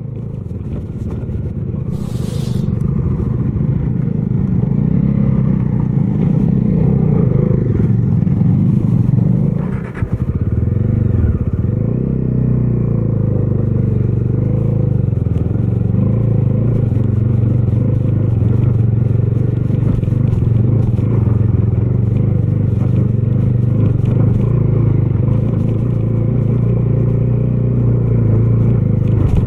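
Bajaj Dominar 250's single-cylinder engine and exhaust heard from on board while riding. It builds up over the first few seconds, dips briefly about ten seconds in, then runs steadily at cruising speed.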